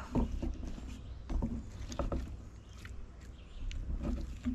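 Fillet knife working a catfish fillet off its skin on a wooden board: short scraping and sliding strokes of the blade, over a steady low rumble.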